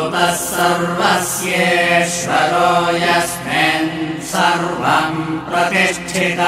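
A solo voice chanting a Sanskrit Vedic mantra in a recitation melody, over a steady low drone.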